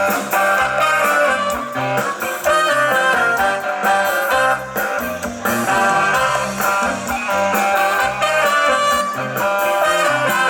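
A band playing an upbeat number, guitar to the fore over a moving bass line.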